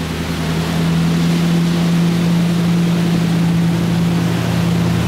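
Pickup truck driving through deep floodwater: a steady engine drone over the rush of water thrown up in a wide bow wave, growing louder about a second in as the truck comes close.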